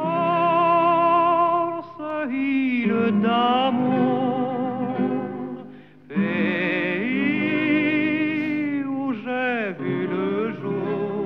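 Music: a singing voice holding long notes with a wide vibrato over a low steady drone, with short pauses between phrases about two and six seconds in.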